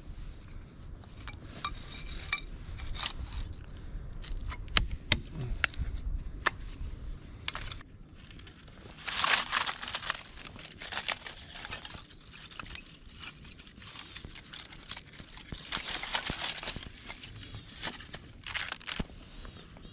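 Thin split wooden kindling sticks knocking and clattering together as they are gathered into a bundle, with sharp wooden clicks and the rustle of gloved hands. The clatter is loudest about halfway through as the sticks are swept up together.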